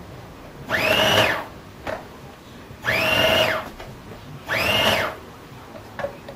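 Food processor pulsed three times, each burst under a second, its motor whine rising in pitch as it spins up. It is cutting the flour mixture for pie dough in short pulses so the dough isn't overworked.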